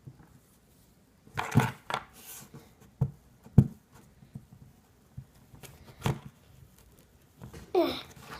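Kinetic sand being pressed into a mold by hand, with several short knocks and scrapes of the mold on a hard surface and a brief falling squeak near the end.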